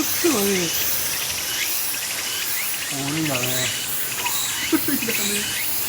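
Insects trilling in a steady, high-pitched chorus, with people's voices talking in short snatches underneath.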